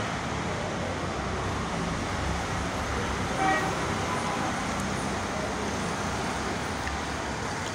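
Steady traffic noise from nearby road vehicles, with a short pitched toot about three and a half seconds in.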